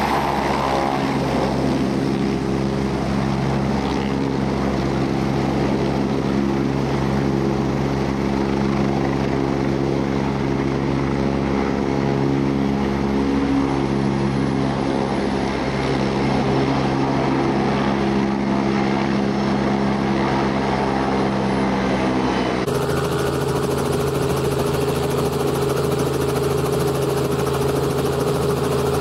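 Helicopter running steadily, its turbine and rotors making a loud hum of several steady tones over a rushing noise. About 23 seconds in, the sound cuts abruptly to a different steady engine sound.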